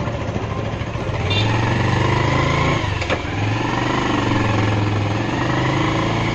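Motorcycle engine running while riding along a road, heard from on the bike with wind noise on the microphone. The engine note picks up about a second in and dips briefly around three seconds, where there is a short click.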